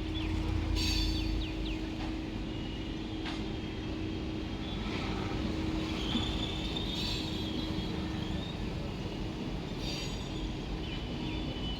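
Passenger train rolling in: a steady rumble of the cars with a constant low hum, broken by several brief high squeals from the wheels.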